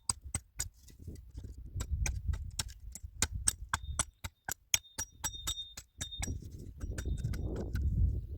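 A quick, irregular run of sharp knocks or taps, several a second, over a low rumble.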